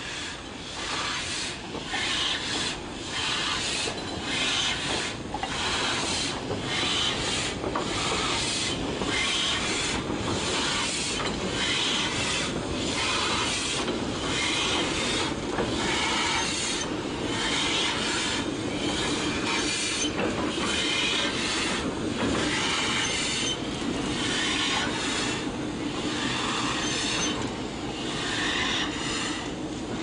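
A steam locomotive being towed slowly, its wheels and motion squealing and rubbing in a regular rhythm, about one and a half squeals a second. It is the protest of a cold locomotive being moved.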